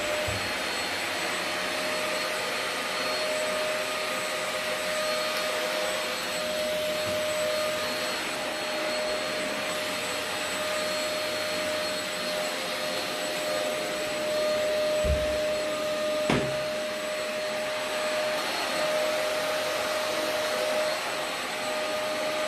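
Vacuum cleaner switched on, its motor spinning up and then running with a steady whine over the rush of air. Two brief low bumps come about two thirds of the way through.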